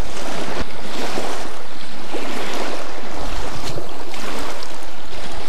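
Wind buffeting the microphone, with small waves lapping at the rocky shoreline.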